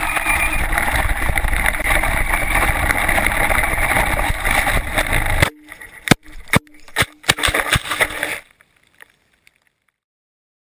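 Steady rushing noise from a camera riding on a radio-controlled car driving fast over grass. The noise cuts off abruptly about five and a half seconds in, followed by a few sharp knocks.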